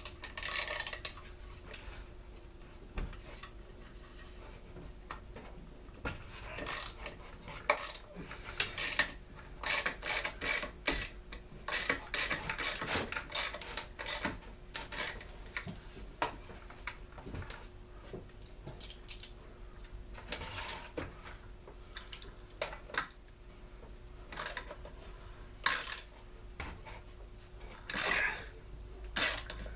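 Hand tools and metal parts working on a leaf blower's hardware during disassembly: irregular clicks, clinks and short scraping rubs, with a faint steady hum underneath.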